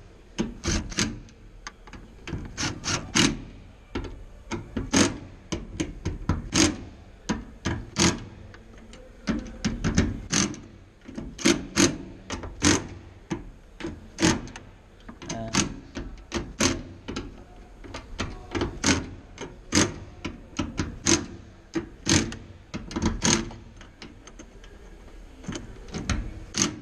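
Ratchet wrench clicking in short runs of a few clicks at a time as the nuts are tightened down in a cross pattern.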